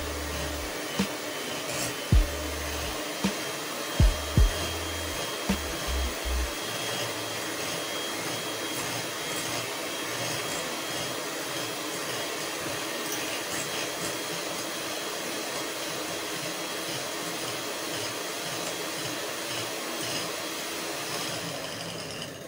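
Electric hand mixer running steadily, its beaters whisking batter in a glass bowl, with a few low thumps in the first six seconds. It switches off at the very end.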